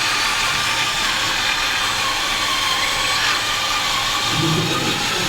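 Steady mechanical whine from the electric motors and gearing of radio-controlled construction machines, several high tones held over a hiss, with a faint voice near the end.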